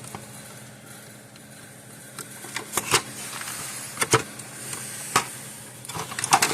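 Scattered sharp clicks and knocks of a fence energizer's transformer and its wires being worked loose inside the plastic case, most of them after the first couple of seconds.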